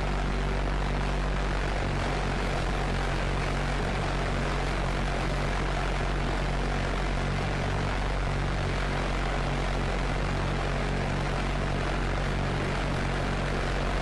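V-1 flying bomb's Argus pulse-jet engine buzzing steadily: a constant low drone with hiss over it, holding the same level throughout.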